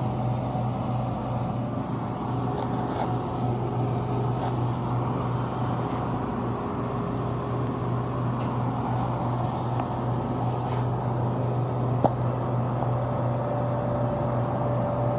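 Household air-conditioning compressor and fan running steadily: a constant low hum under an even rush of moving air, with one small click about twelve seconds in.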